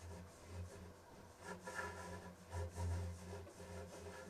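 Sewer inspection camera being pushed along the sewer line: irregular rubbing and scraping over a steady low hum.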